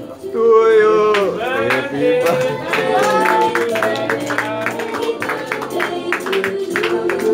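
Music with singing over a beat of sharp plucked or struck notes.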